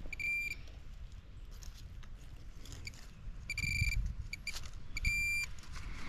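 Metal detector beeping three times with short, steady high-pitched target tones, signalling metal in the ground.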